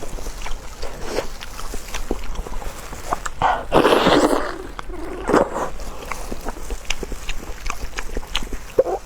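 Close-up eating sounds: a person chewing and smacking on soft food, with many small wet clicks and a few louder slurps.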